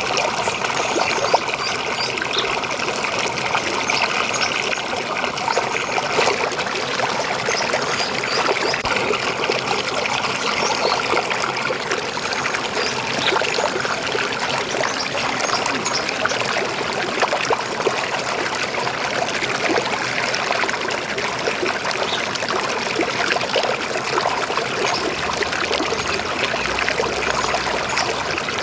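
River water flowing and babbling over rocks, a steady rushing trickle.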